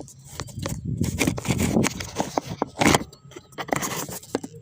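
Close handling noise of a camera being propped in place: irregular scraping, rubbing and clicking against the microphone, with one louder scrape about three seconds in.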